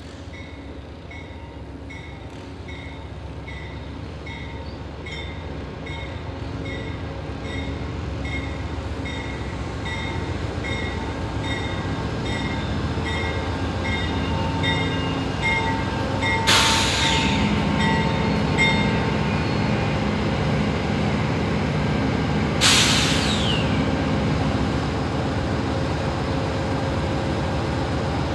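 Amtrak passenger train behind a GE P42 diesel locomotive approaching and running past, its rumble growing steadily louder, while a grade-crossing bell dings about one and a half times a second, fading out about two-thirds of the way through. Two sudden hissing bursts stand out, about six seconds apart.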